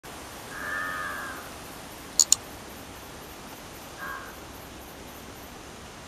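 A large-billed crow cawing: one drawn-out caw about half a second in and a shorter caw about four seconds in. Two sharp clicks, louder than the calls, come about two seconds in.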